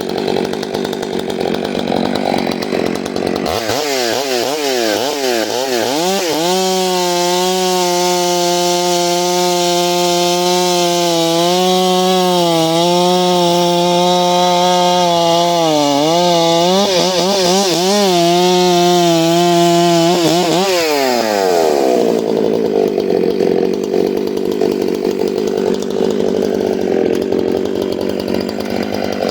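Stihl MS 661 two-stroke chainsaw with a 32-inch bar and square-ground full-skip chain cutting into a dry snag. The engine runs near full throttle, its pitch rising and falling in the first few seconds, then holding under load with small dips through the cut. Its pitch drops steeply a little past two-thirds of the way through.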